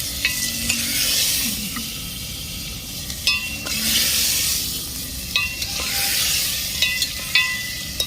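Chicken pieces sizzling and frying in hot mustard oil in a brass pot, with a steady hiss. A spoon stirs them, scraping and striking the pot with short ringing clinks several times, most of them in the second half.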